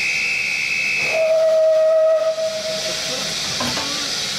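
A shrill high whistle for about a second, then a narrow-gauge steam locomotive's whistle sounding one steady note for about two seconds, over the steady hiss of escaping steam.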